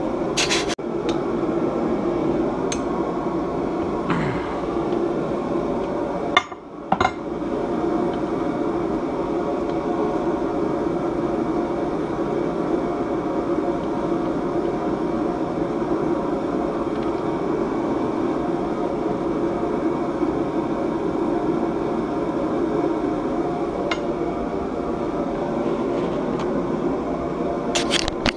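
Steady whirring drone of a workshop space heater running, with a few sharp clinks of hand tools on metal.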